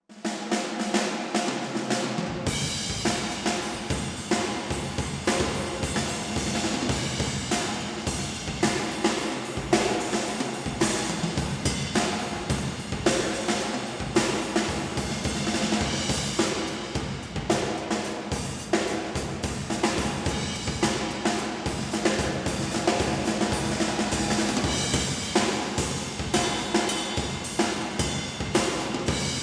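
Schagerl drum kit with raw brass shells being played in a continuous groove of snare and bass drum hits, the Antares 14x6.5 brass snare cracking over a 20x18 bass drum, with the big hall's reverb ringing after each stroke. The bass drum comes in about two seconds in.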